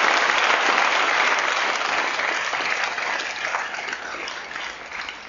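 An audience applauding: many hands clapping in a dense patter that slowly dies away toward the end.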